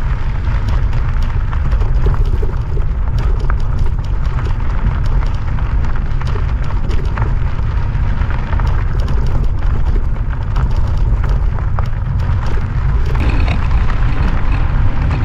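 Wind buffeting the microphone on a moving e-bike, a steady loud rumbling rush.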